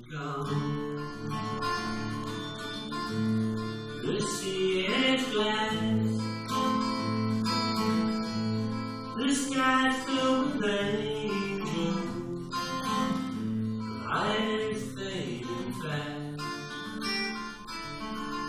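Acoustic guitar playing a slow instrumental introduction to a song, with strummed chords every few seconds.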